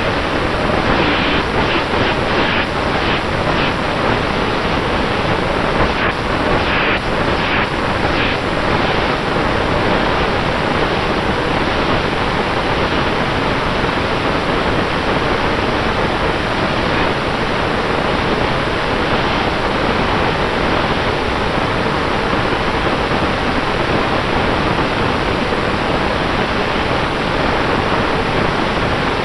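Spinning propellers and brushless motors of a 5-inch FPV quadcopter, heard through a microphone mounted on its frame: a loud, steady rushing hiss with a faint steady hum tone underneath.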